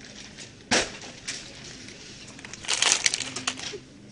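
A sharp knock about three-quarters of a second in, a lighter one soon after, then about a second of crackling and rattling near the end.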